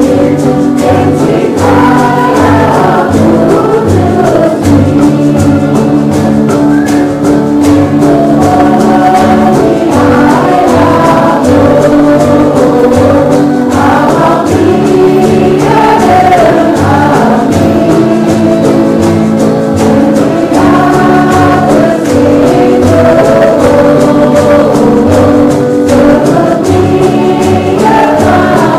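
Background music: a gospel-style Christian song with several voices singing together over a steady bass beat.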